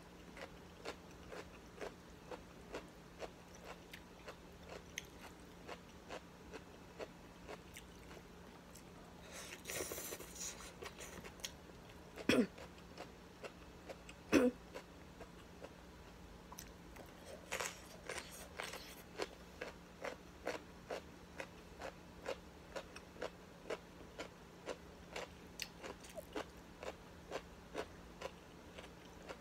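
Close chewing and crunching of raw vegetables such as carrot and cucumber, in short crunches about twice a second, with two louder brief sounds a little before the middle.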